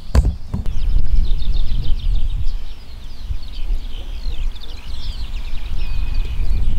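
Wind buffeting the microphone in a steady low rumble, with small birds singing in quick, repeated chirps above it. A single knock right at the start.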